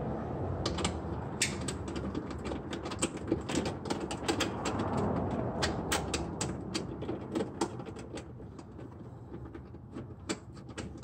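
Hand socket ratchet clicking in short, irregular runs as bolts under the rear of a car are run in snug before torquing, over a steady low hiss.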